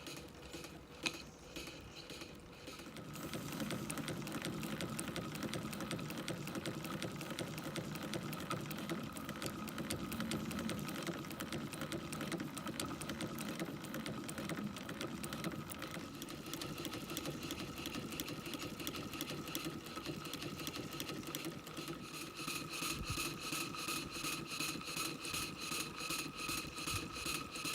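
Maxitrak live-steam model Fowler ploughing engine running at a slow idle, a steady rhythmic mechanical beat. It grows louder a few seconds in, and near the end the beats come out sharply at about two to three a second.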